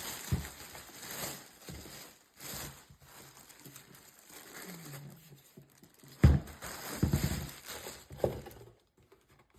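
Handling of a newly unpacked humidifier and its packaging: rustling and crinkling, with scattered knocks that come harder and closer together about six to eight seconds in.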